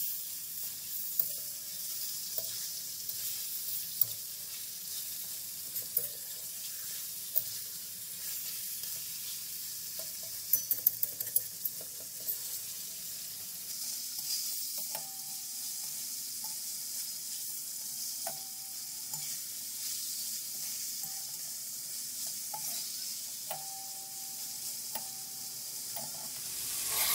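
Beef chunks sizzling in ghee and garlic-ginger paste in a metal karahi, browning at the start of cooking. A flat spatula stirs the meat, scraping and knocking against the pan with scattered clicks, a quick run of them about ten seconds in.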